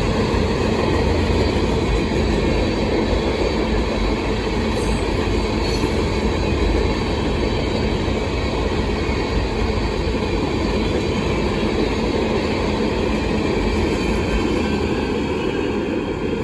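Freight cars of a rock train rolling past, a steady rumble of wheels on rail, easing off slightly near the end.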